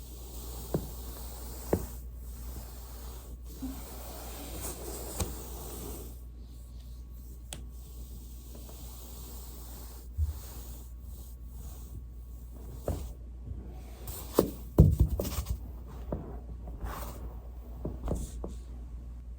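Joints cracking during foam rolling: single sharp pops about one and two seconds in, and a loud cluster of quick pops about fifteen seconds in, over a soft rustling hiss of the body moving on the roller.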